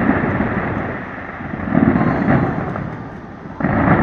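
Aerial fireworks bursting overhead: deep booms, one about two seconds in and a sharper one near the end, with rumbling echoes between them.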